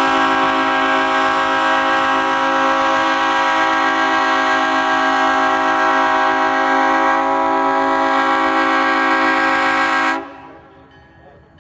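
Multi-chime locomotive air horn blowing one long, steady chord, which cuts off sharply about ten seconds in.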